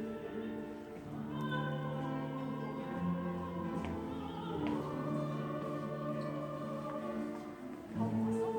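Large guitar orchestra playing slow held chords, with a soprano singing a sustained melody above them.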